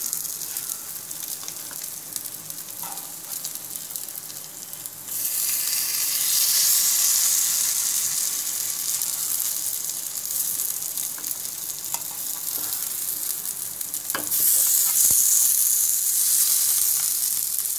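Semolina-coated fish fillets sizzling in shallow oil in a nonstick frying pan, the second side frying after being turned over. The sizzle grows louder about five seconds in and again about fourteen seconds in.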